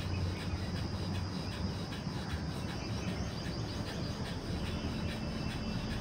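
Fast, rhythmic forceful exhalations through the nose, the kapalbhati pumping of bhastrika pranayama, over a steady low background rumble, with a bird chirping briefly in the middle.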